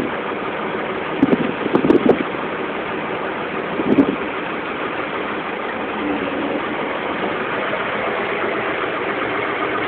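Vehicle engine and road noise heard from inside the cab while driving, steady throughout, with short knocks and rattles about a second in, around two seconds in and again at four seconds.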